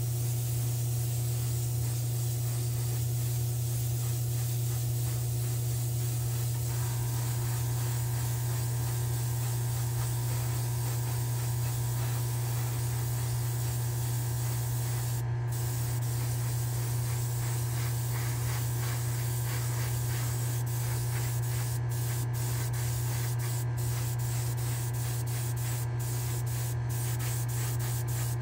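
Airbrush spraying paint in a steady hiss, with brief breaks in the spray from about halfway through, over a steady low hum.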